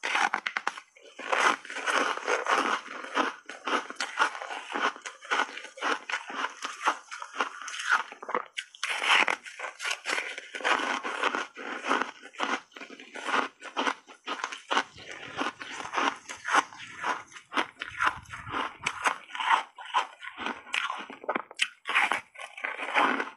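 Close-miked crunching and biting of refrozen foam ice coated in matcha powder: dense, irregular crunches as big bites are taken and chewed, with a few short pauses.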